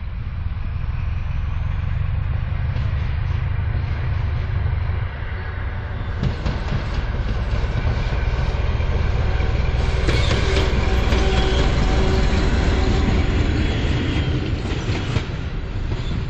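SM31 diesel-electric locomotive running light, its diesel engine growing louder as it approaches and passes close by. About ten seconds in, the wheels start clattering over the rail joints as it goes past.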